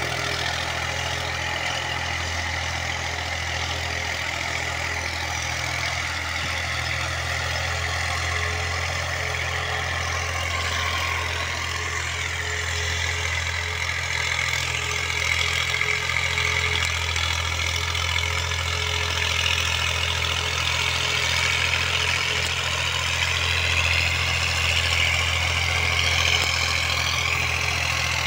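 Farm tractor's diesel engine running steadily with a constant low hum, its higher tones drifting slightly in pitch around the middle and again near the end.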